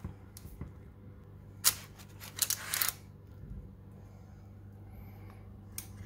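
A kitchen utensil scraping and clattering against a baking dish and plate as baked stuffed eggplant halves are served out: one short scrape about one and a half seconds in, then a longer rough scrape a little after two seconds.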